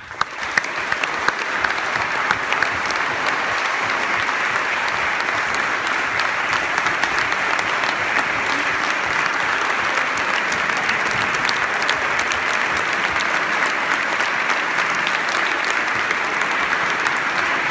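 Audience applauding: many people clapping, starting at once and holding steady.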